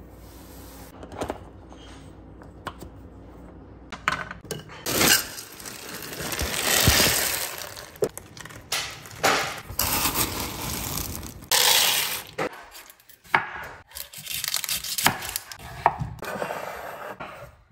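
Kitchen food prep on a wooden cutting board. A few light clicks, then long rattling rushes as frozen peas spill and scatter across the board, then a series of sharp knife chops through an onion onto the board.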